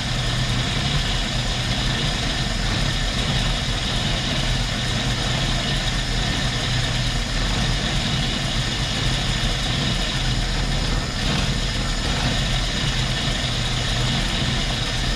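Jeep CJ5's AMC 232 straight-six idling steadily after a manifold reinstall, while its carburetor's idle mixture screw is adjusted; the owner has just judged it too rich.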